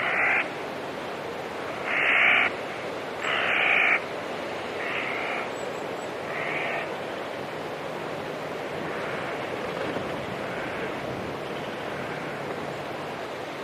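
A bird giving about five harsh half-second calls over the first seven seconds, the second and third loudest and the later ones fainter, over a steady rushing background noise.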